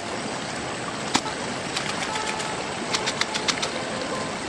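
Steady rushing of river water, with a few sharp clicks and splashes as hands work a wet carpet sluice mat in muddy water: one about a second in and a quick run of them about three seconds in.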